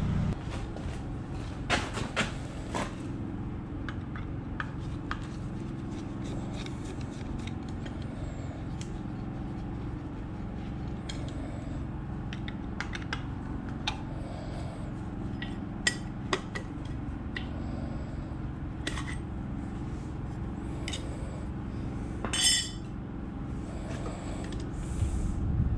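Metal hand tools and parts clinking and tapping now and then while an electric air compressor motor is worked on, over a steady low hum. The loudest clink comes near the end and rings briefly.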